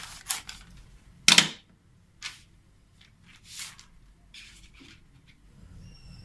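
Scissors snipping through a sheet of paper in a few quick cuts, then the paper rustling as it is handled and pressed flat, with one loud, sharp rustle about a second in.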